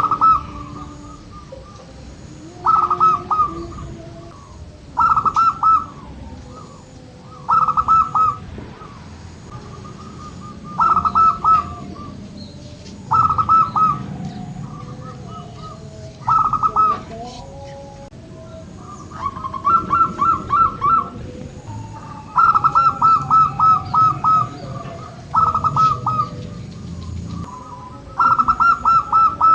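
Zebra doves (local perkutut) cooing: short phrases of quick staccato coos, one every two to three seconds, with longer runs of notes in the second half.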